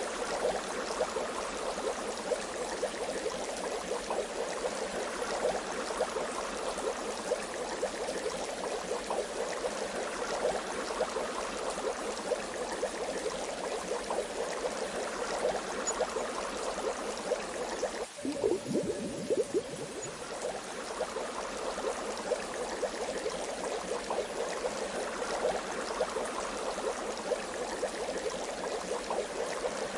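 Bath water bubbling and gurgling steadily, with many small bubbles popping. About eighteen seconds in the sound breaks off for an instant and a lower, falling gurgle runs for a couple of seconds before the steady bubbling resumes.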